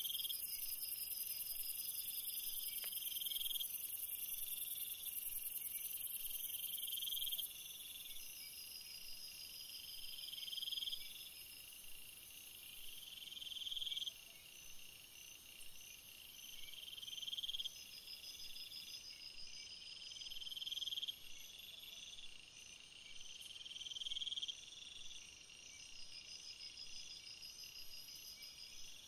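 Insect chorus, cricket-like: a steady high buzz that stops about seven seconds in, with short rising calls that swell and cut off every three to four seconds and fast pulsed trills higher up.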